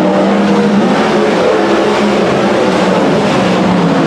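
A pack of winged 410 sprint cars' V8 engines at racing speed on a dirt oval: a loud, steady blend of several engine notes, their pitches wavering slightly as the cars go through the turns.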